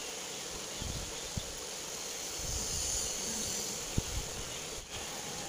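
Steady background hiss with a faint hum, broken by a few soft low knocks, one about a second and a half in and one near four seconds.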